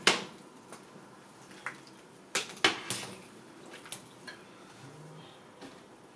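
A cooking spoon knocking against a stainless steel pot while the soup is stirred: one sharp clack at the start, the loudest, then three quick knocks about two and a half seconds in, with a few lighter ticks between.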